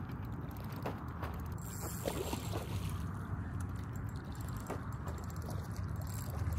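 Okuma baitfeeder spinning reel ticking and whirring as a hooked fish is fought and reeled in, with irregular clicks from the reel. A steady low wind rumble on the microphone runs underneath.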